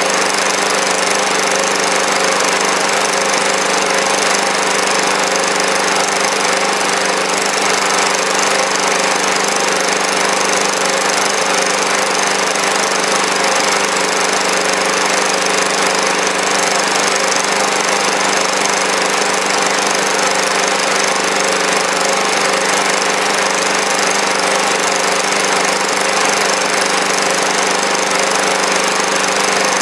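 Small engine running steadily at a set speed, driving a generator under about 350 watts of electrical load. It is running in standard trim on liquid fuel only, without HHO, during a baseline fuel-consumption test.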